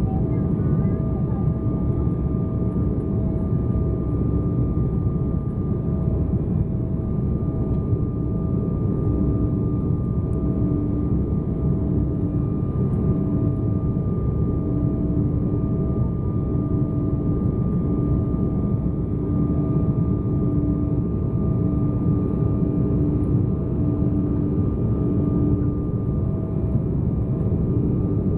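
Cabin noise of an Embraer 190 airliner in descent on approach, heard inside the cabin: its twin GE CF34-10E turbofans and the airflow make a steady low rumble. Over the rumble runs a droning engine tone that pulses about once a second.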